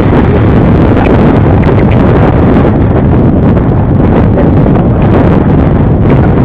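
Wind buffeting a GoPro's microphone, steady and loud, over the running of an ATV.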